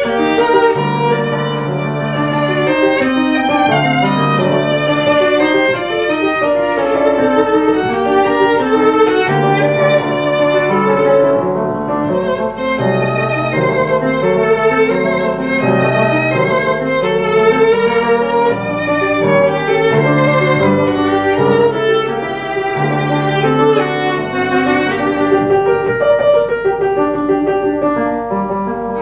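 Violin and grand piano playing classical chamber music together: a sustained violin melody with vibrato over piano chords and low bass notes, continuous throughout.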